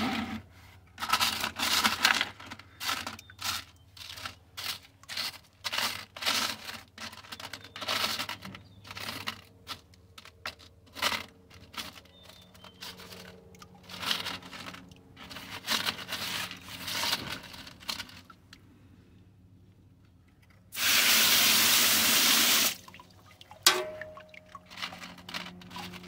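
Hands raking through wet ore gravel on a mesh sifting screen, the stones scraping and clattering in short bursts. About 21 seconds in, a steady spray of water hits the screen for about two seconds.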